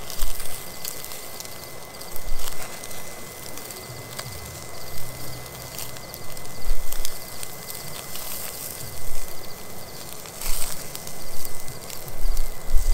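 Small wood fire in a portable stove being coaxed alight: repeated whooshes of air pushed at the smoking kindling, with scattered light crackles.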